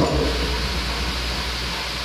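Steady rushing noise over a low hum, the running background noise of a machine shop.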